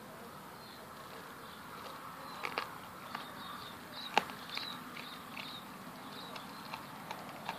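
A golden retriever chewing a whole raw rabbit with the fur on: a run of sharp crunches and clicks of teeth on the carcass, the loudest about four seconds in.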